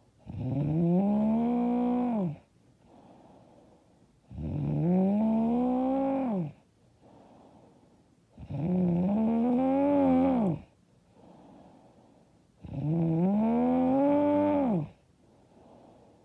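A woman snoring loudly and rhythmically: four long snores about four seconds apart, each lasting about two seconds and dropping in pitch as it ends, with quiet breathing between them.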